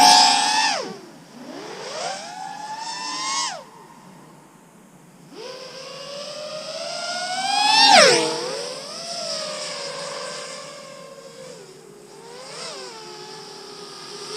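Whine of a 7-inch FPV quadcopter's Brotherhobby 2808 1500kv motors and Gemfan 7040 props, rising and falling in pitch with the throttle. The drone makes several passes. About eight seconds in, the whine climbs to its loudest and then drops sharply in pitch as the drone flies by.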